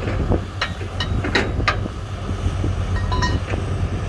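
Heavy construction machinery running: a steady low diesel engine drone with several sharp metallic clanks in the first two seconds and a brief high squeal a little after three seconds.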